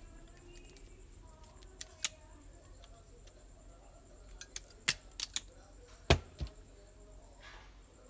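Automatic wire stripper squeezed on a thick 8 AWG cable: a few scattered sharp clicks and snaps from its spring-loaded jaws, the loudest about six seconds in, then a brief rustle. The tool does not strip the thick wire cleanly with so short a strip length.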